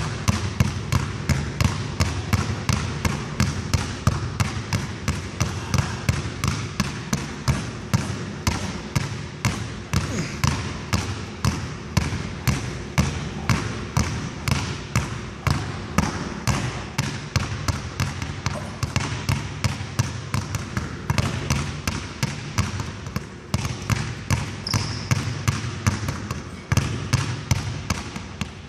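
Two basketballs dribbled at once on a hardwood gym floor: a fast, steady run of hard bounces, several a second.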